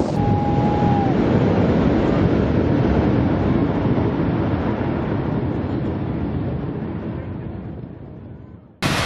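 Boeing 747's four jet engines: a steady, deep roar that slowly fades as the jet draws away down the runway, then cuts off abruptly near the end.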